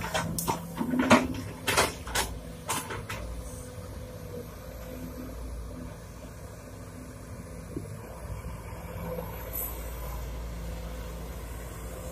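Sumitomo SH210 hydraulic excavator's diesel engine running steadily. It is loading a dump truck, and in the first three seconds a series of sharp knocks and thuds comes as the bucket of earth is dumped into the truck's steel bed.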